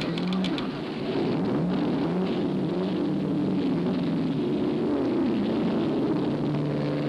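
Several race car engines running together at different pitches, their notes sliding up and down, over a steady noisy haze.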